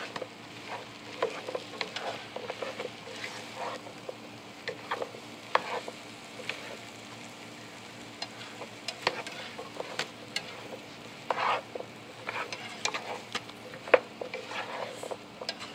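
Taro root pieces being stirred with a wooden spatula in a frying pan of sizzling spiced oil: a steady low sizzle with irregular scrapes and clicks of the spatula against the pan.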